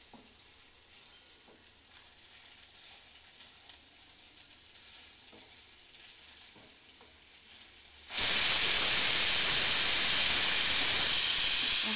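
Aluminium pressure cooker on a high flame: faint ticking for about eight seconds, then the weight valve lifts and steam vents in a sudden, loud, steady hiss. This is the cooker's first whistle, the sign that it has come up to pressure and the heat is to be switched off.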